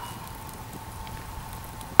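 A pause between blows, then near the end one sharp blow of a hatchet on a wooden board laid over a whole chicken, pounding it flat to break the joints. A faint steady high tone runs underneath.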